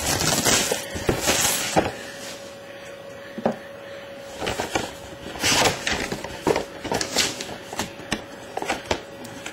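Cellophane shrink wrap being torn and crinkled off a cardboard trading-card box, loudest near the start and again about halfway through, with light clicks and knocks of the box being handled in between.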